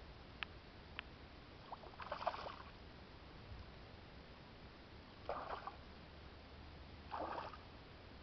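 Hooked smallmouth bass thrashing at the water's surface, three short splashes a couple of seconds apart, after two light clicks in the first second.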